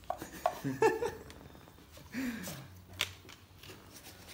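Handling noise: scattered light clicks and rustles as a leather belt with a metal buckle and its paper packaging are handled, with a sharper click about three seconds in. A couple of short murmured voice sounds come in the first half.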